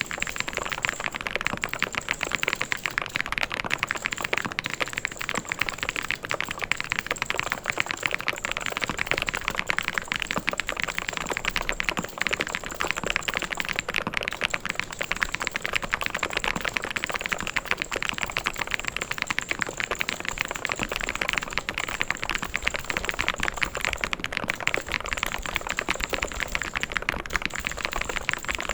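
Fast, continuous typing on a mechanical keyboard: a dense, even stream of key clicks and clacks with no pauses.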